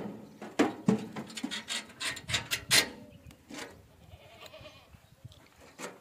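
A heavy Ajmera buck being handled into a steel-frame pen: a quick run of sharp knocks and rattles in the first three seconds as its hooves and body strike the metal bars, then a couple of single knocks.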